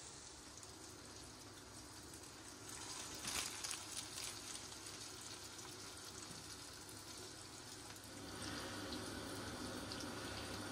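Hot oil sizzling and bubbling in a frying pan as bamieh dough is piped into it, with a few light ticks a few seconds in and a fuller sizzle near the end.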